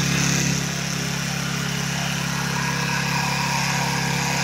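The combustion engine of a remote-controlled tracked lawn mower running steadily.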